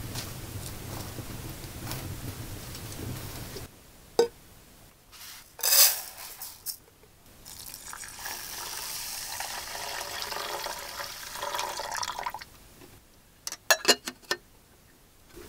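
Water poured in a thin stream into a small metal camping pot for about four seconds, after a short rattle of dry grains tipped in from a pan lid. Near the end, a few sharp metal clinks as the pot is set on a wire grill; a wood fire crackles at the start.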